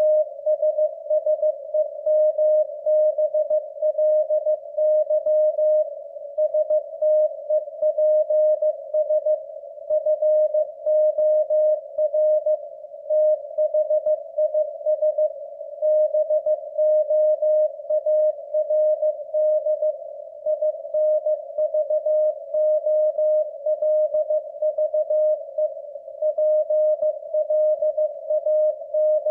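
Morse code sent at 15 words per minute on W1AW code practice: a single mid-pitched tone keyed on and off in quick dots and dashes, with a faint hiss around the tone.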